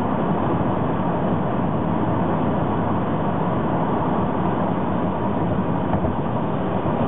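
Steady road and wind noise heard inside a moving car's cabin, mixed with the rumble of a long freight train of boxcars and tank cars running alongside.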